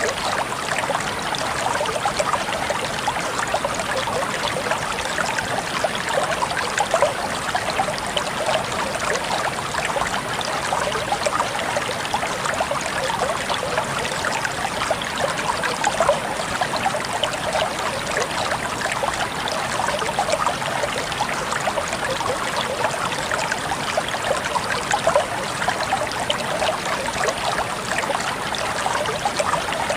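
A small river or stream running over stones, a steady babbling and trickling of water with no pauses.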